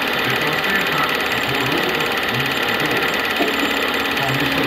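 Film projector running: a steady, fast mechanical whirr and clatter of the film transport.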